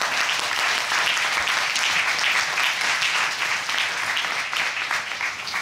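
Studio audience applauding, a dense patter of many hands clapping that eases off near the end.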